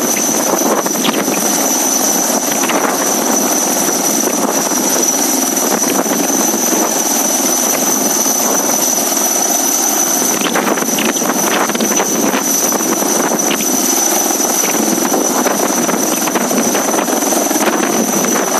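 Helicopter running close by, a steady loud noise with a constant high whine.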